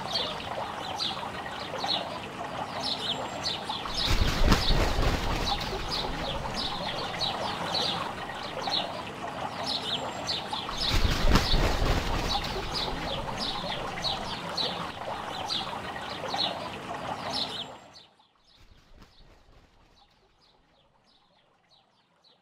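Birds chirping in quick repeated calls over the steady splash of a fountain, swelling twice and fading out about eighteen seconds in.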